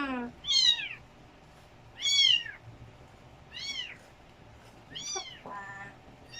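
A cat meowing again and again, five high cries that rise and fall in pitch, about one every second and a half, the first two the loudest.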